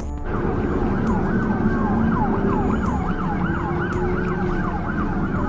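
A siren wailing in a fast, repeated up-and-down sweep, about two to three cycles a second, over a steady low rumble.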